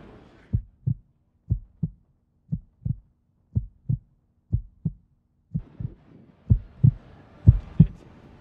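Heartbeat sound effect: paired low thumps, lub-dub, about once a second and growing louder toward the end. Background ambience drops away at first and fades back in from about halfway.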